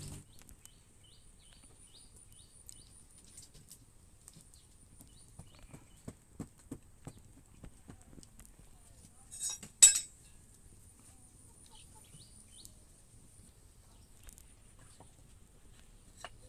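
Faint scattered knocks and scrapes of stone slabs and packed earth being handled on a dirt floor, with a sharper, louder knock about ten seconds in.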